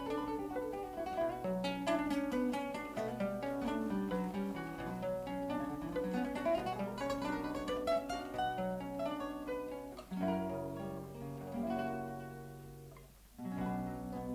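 Instrumental music: nylon-string acoustic guitars picking a fast melody and strumming chords over electric bass. The playing fades to a brief pause near the end, then starts again.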